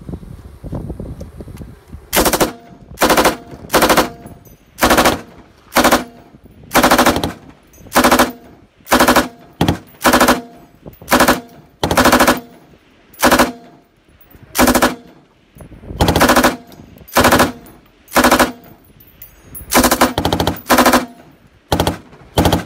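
M249 light machine gun, belt-fed 5.56 mm, firing from a tripod in short bursts of a few rounds each, about one burst a second, starting about two seconds in.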